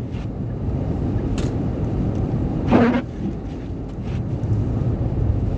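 Steady low rumble of a car driving, heard from inside the cabin, with a brief vocal sound about halfway through and a couple of faint clicks.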